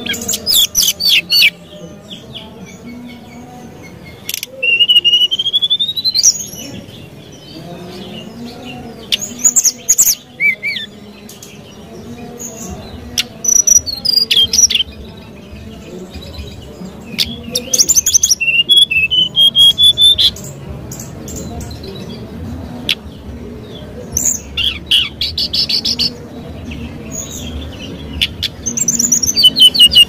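Brown-chested jungle flycatcher singing: short phrases of fast, high trills and clear whistles, one of them a rising whistle, repeated every few seconds with brief pauses between.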